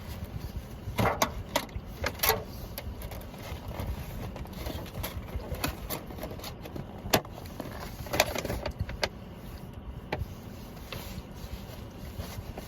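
Someone biting into and chewing a grilled chicken sandwich, with a scattering of short crackling clicks from the food and its wrapping, over a steady low rumble.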